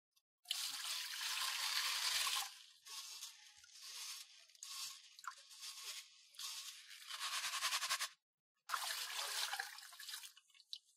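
Mung beans being rubbed and stirred by hand in a wire-mesh strainer sitting in water as they are washed, a scratchy swishing with small splashes. It comes in long stretches, with a brief pause about eight seconds in.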